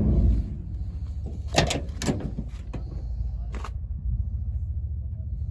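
A 460 cubic-inch (7.6 litre) big-block V8 idling steadily, its exhaust manifold gasket leaking. Over it, a sharp latch click as the side storage compartment lid shuts, then a few lighter clicks and knocks from handling the cab door, about two seconds in and again near four seconds.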